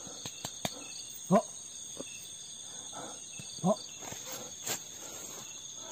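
Steady night chirring of crickets. Over it, a man gives two short rising cries, about one and a half and three and a half seconds in, and there are a few light clicks near the start.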